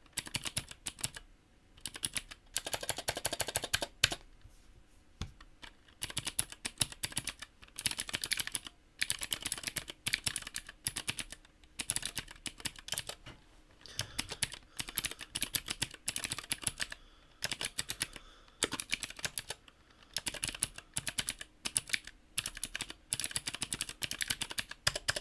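Clueboard mechanical keyboard in a CNC-machined aluminum case with clicky Greetech Blue switches, heard close up. It is typed on in quick runs of sharp key clicks, with short pauses between the runs.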